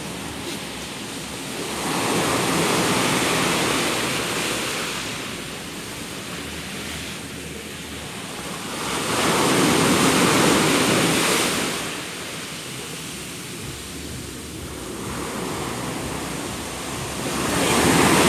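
Sea waves breaking on a beach: a steady rushing wash that swells three times, roughly every seven to eight seconds, as each wave crashes and runs up the shore.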